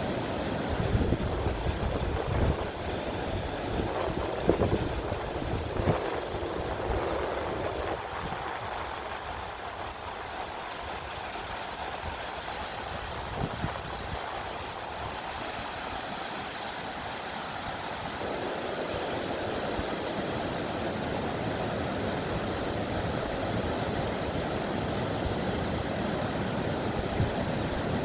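Waterfall, a steady rush of falling water. There are low thumps of wind on the microphone in the first several seconds.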